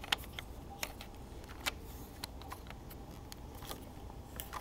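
Plastic Lego bricks clicking and knocking as fingers handle and slide pieces across a Lego baseplate: a scatter of small, sharp, irregular clicks.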